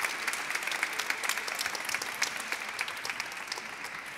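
A small audience applauding, individual claps standing out, the clapping easing off a little toward the end.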